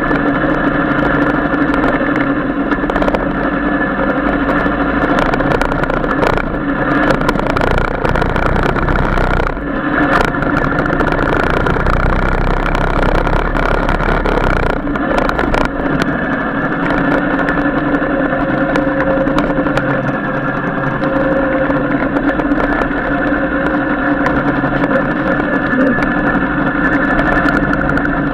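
Royal Enfield Classic 350's single-cylinder engine running steadily as the motorcycle rides along, heard close from a camera mounted on the bike. The engine note shifts briefly around 10 and 15 seconds in.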